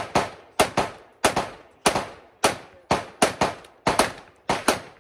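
Pistol gunfire: a rapid string of sharp shots, about two or three a second and some in quick pairs, each with a short echo.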